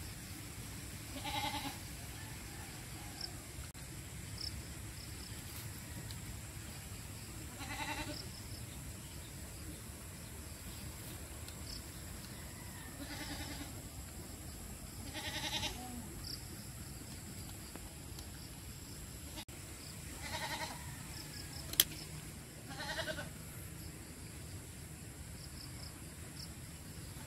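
Goats bleating, about six separate wavering bleats spread out over the stretch.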